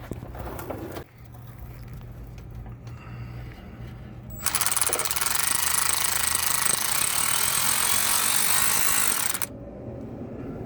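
A power tool runs for about five seconds in the middle, a loud fast rattling buzz, spinning the small 8 mm nut off the starter's wire terminal.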